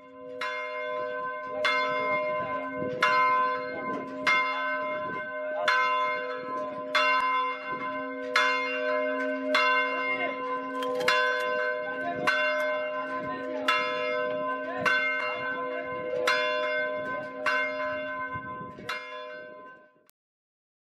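A single church bell tolling at an even, slow pace, about fifteen strikes with its deep hum ringing on between them; the tolling cuts off near the end.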